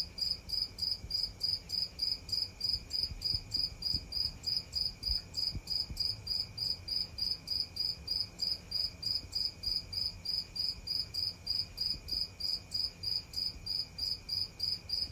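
Cricket chirping in an even, unbroken rhythm, about four high chirps a second, with a faint steady high tone underneath.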